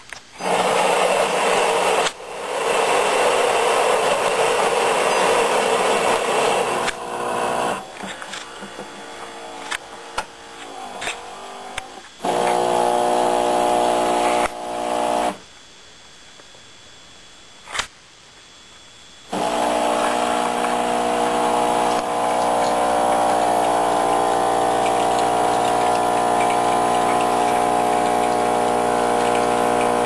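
Saeco Talea super-automatic espresso machine brewing an espresso. Its built-in grinder grinds beans for about seven seconds, then the brew unit whirs and clicks. The pump hums for about two seconds, goes quiet for a few seconds, then hums steadily again from about 19 seconds in as the espresso pours.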